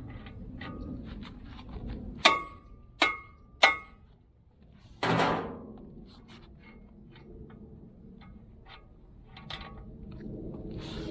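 Hammer strikes on steel: three sharp, ringing blows about two seconds in, a little over half a second apart. They are tapping on a nut threaded back onto a mini excavator's bucket pin to drive the pin out. A short scraping rush follows about five seconds in, with light metallic clicks and handling throughout.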